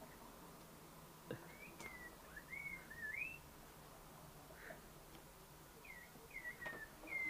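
Faint, high whistly chirps from the cat video playing on a TV, sweeping up and down in pitch: a run of them about a second and a half in, and another near the end.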